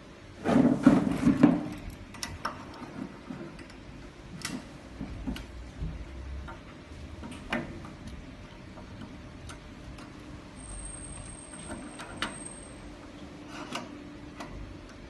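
Metal machine parts knocking and clicking as a vacuum suction plate and its nut are worked by hand into an aluminium rail: a loud cluster of knocks and rattles about half a second in, then scattered light clicks and taps.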